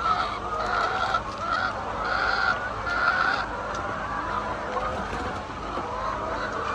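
A large flock of chickens clucking and squawking, many calls overlapping.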